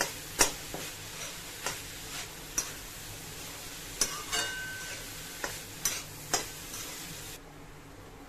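Metal spatula stirring and scraping chicken mince in a metal kadhai over a low sizzle, with a sharp clink of the spatula against the pan every second or so. The mince is being roasted in its spices until its water cooks off, and the sizzle drops away near the end.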